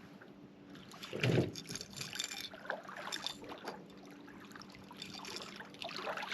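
Water splashing and handling noises on a fishing boat while a catfish is brought in, with a heavy thump about a second in and scattered knocks and rustles after it.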